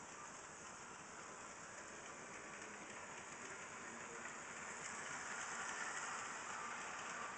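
Model railway locomotive and Pullman carriages running on the track, a steady whirr of motor and wheels that grows louder as the train approaches and passes close by about five to six seconds in.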